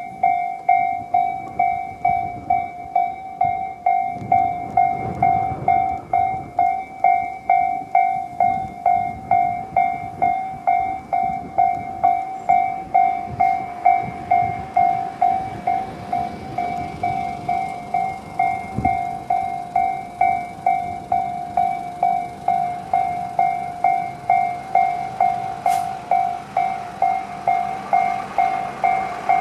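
Japanese railway level-crossing electronic alarm, the Tobu 'C' tone, ringing in a steady repeating ding at about two and a half strokes a second. Through the middle a train runs past with a low rumble.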